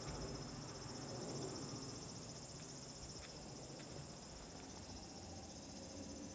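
Steady high-pitched chorus of insects droning without a break.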